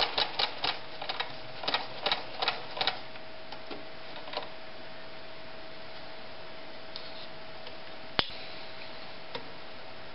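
White 1077 "Jeans Machine" sewing machine stitching through eight layers of denim: rapid needle strokes slow to a few separate stitches and stop within the first few seconds. Afterwards a faint steady hum remains, with one sharp click about eight seconds in.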